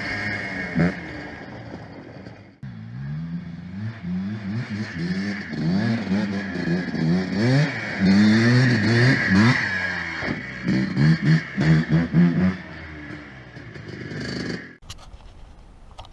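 Predator 212 single-cylinder four-stroke engine on a ride-on Power Wheels kart, its revs rising and falling again and again as the throttle is worked while driving, over a steady scraping hiss. The engine sound drops away abruptly near the end.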